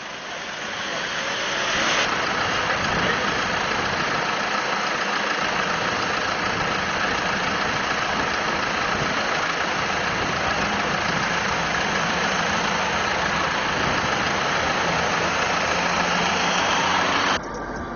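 Car engines running close by amid street traffic, a steady dense noise with no break. It cuts off suddenly near the end.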